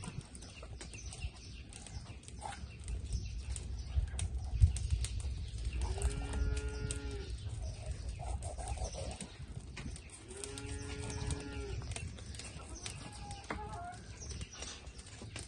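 A cow mooing twice, each call about a second long and about four seconds apart. Light knocks of a knife on a wooden cutting board come in between, the sharpest about four and a half seconds in.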